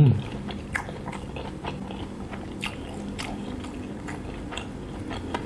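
A person chewing a mouthful of fried sausage close to the microphone, with irregular wet mouth clicks and small crunches.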